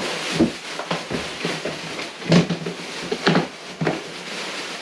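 Black plastic bag rustling and crinkling as it is rummaged through inside a plastic storage tote, with a few sharp crackles or knocks, the loudest a little over two seconds in.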